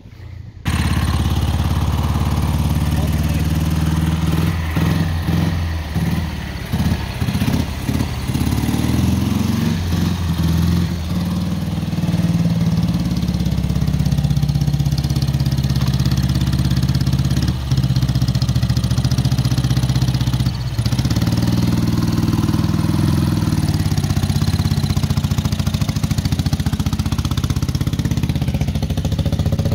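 Ural M-67-36's flat-twin engine running, coming in suddenly about half a second in; it runs unevenly with dips for the first several seconds, then settles to a steady run.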